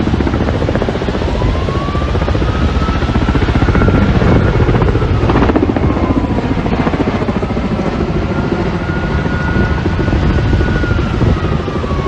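Firefighting helicopter's rotor chopping steadily and loudly, with a siren wailing over it, its pitch slowly rising, holding and falling away twice.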